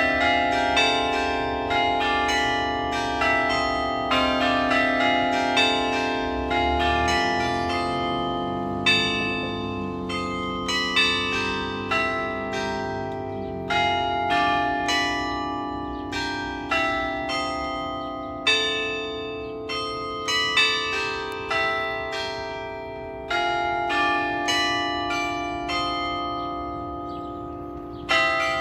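The carillon bells of the New Ulm Glockenspiel clock tower playing a slow melody: single bell notes struck one after another, each ringing on under the next.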